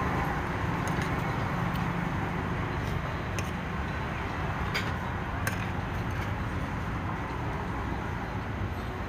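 Steady low rumble of passing road traffic, with a few light clicks of a spoon and fork against a plate.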